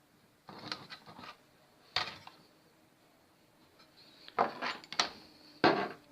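Handling noise on a repair bench: hard objects such as tools, cables and the TV chassis being picked up, moved and set down, giving a series of sharp knocks and short clattering rattles, the loudest near the end.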